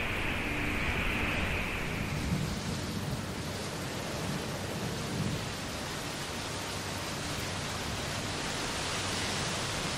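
Steady rain-like rushing noise with low rumbles that swell about two and five seconds in, like distant thunder.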